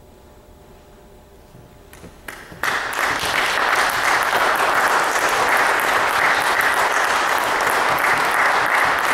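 The final marimba chord dies away faintly, then a few scattered claps about two seconds in give way to a full audience applauding steadily.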